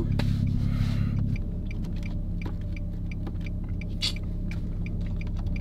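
Cabin sound of an Infiniti G35 under way: a steady low engine and road hum that eases slightly about a second and a half in, with faint light clicks on top.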